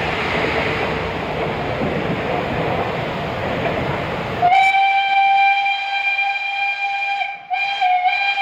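Steam locomotive No. 2306's steam whistle sounds one long steady blast about halfway in, breaks off briefly, then sounds a second shorter blast near the end. Before it, a steady hiss of steam.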